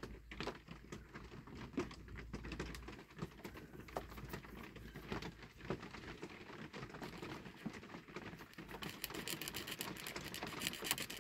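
Small blade shaving and scraping the edge of a clear plastic reproduction part to make it fit: faint scratchy scrapes and light clicks, turning into a quicker, denser run of fine scratches about nine seconds in.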